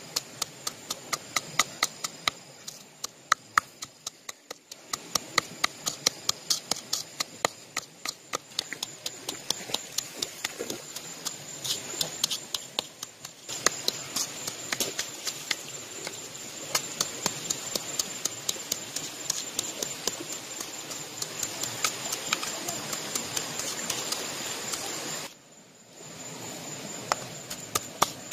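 A hand-held stone pounding chilies, garlic and coarse salt in a coconut-shell bowl, sharp knocks repeating about three a second with a few short breaks. A faint steady high tone sits underneath.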